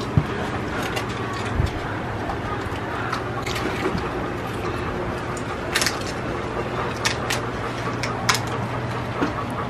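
People eating puchkas at a table: short scattered crunches and clicks as the crisp shells are broken and bowls and utensils are handled, over a steady low hum.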